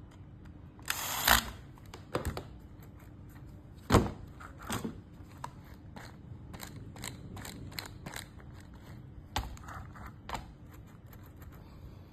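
Handling noises from working on a small remote-control car: a short scrape about a second in, a sharp knock about four seconds in, and scattered light clicks and taps of small parts and tools.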